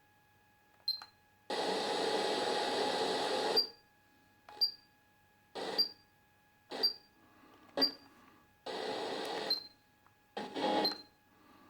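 Pioneer KEX-P820RDS car stereo's FM tuner stepping through the band. Bursts of hiss and static between stations cut in and out, many ending in a short high click, and the set mutes between them.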